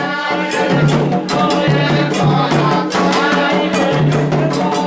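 Music with singing over fast, even percussion: shakers and drums keeping a steady rhythm.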